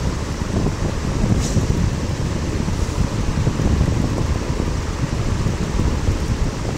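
Heavy rain and pouring water: a loud, steady rushing noise with a strong low rumble.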